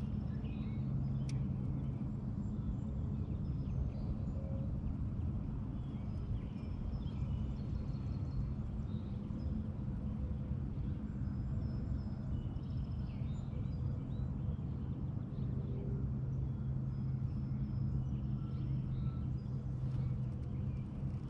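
Boat motor running at a steady, even hum, pushing a small fishing boat across the water. Faint bird chirps sound over it.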